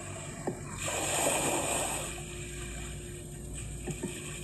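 Sea waves washing against a stone pier, a rushing noise that swells about a second in and then settles back.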